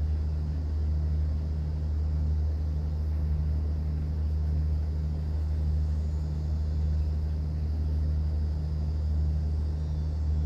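A cruise boat's engine running with a steady low drone, and a faint hiss over it.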